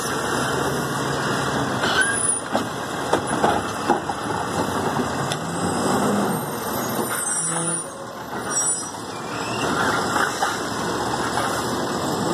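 Automated side-loader garbage truck running at the curb while its hydraulic arm lowers an emptied cart, with several sharp knocks a couple of seconds in as the plastic cart is set down. The truck then moves off.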